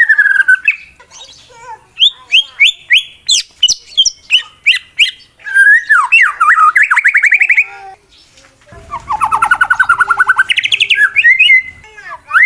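White-rumped shama (murai batu) singing its fighting challenge song: runs of sharp, sliding whistled notes and fast rattling trills, with a brief pause a little past the middle before another long fast trill.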